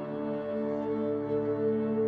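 Ambient background music: slow, sustained synth pad tones.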